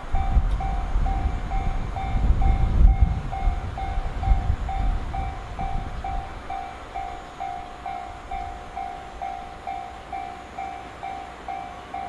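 Japanese level-crossing warning bell ringing in steady electronic pulses about twice a second, while a passing freight train's low rumble swells and dies away by about halfway through.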